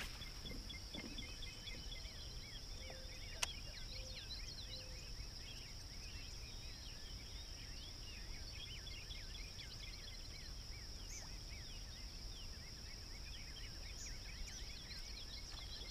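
A steady high insect drone with many small bird chirps over it, above a faint low rumble. One sharp click about three and a half seconds in.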